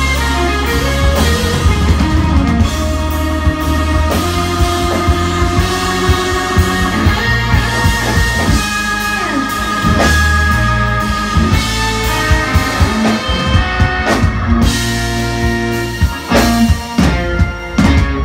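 Live blues band playing: electric guitar lines over drums, with the Telecaster-style guitar on stage. Near the end the band breaks into short, separated stop-time hits.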